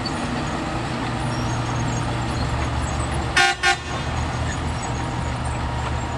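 A heavy diesel engine of earthmoving machinery runs steadily with a low drone. Near the middle a vehicle horn gives two short beeps in quick succession.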